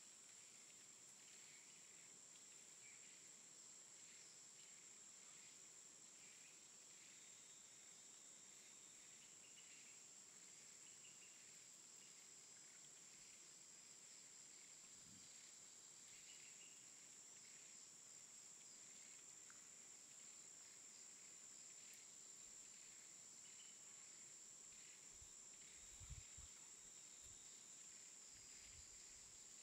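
Faint, steady, high-pitched insect chirring in grass, with a few soft low thumps near the end.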